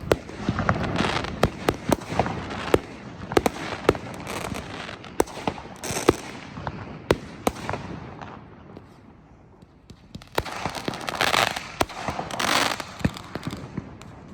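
Fireworks going off: a string of sharp bangs and pops, easing off for a couple of seconds, then two longer hissing, crackling bursts near the end.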